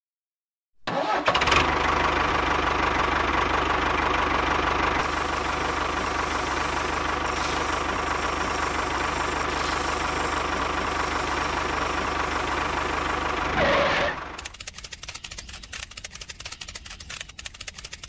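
An engine starts about a second in and runs steadily, then near the end gives way to a quieter, fast rattling.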